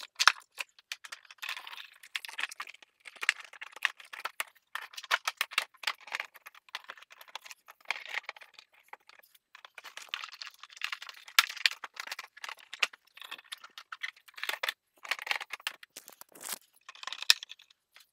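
Irregular clicks and rattles of a charging cord and plastic panels being handled inside a Club Car golf cart's battery compartment as the cord is routed and tucked.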